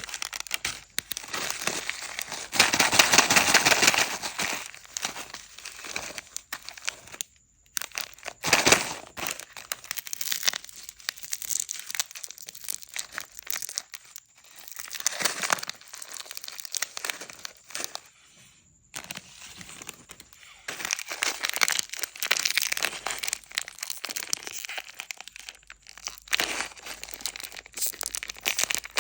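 Plastic and foil snack wrappers crinkling and being torn open, in dense crackly spells broken by a couple of brief pauses.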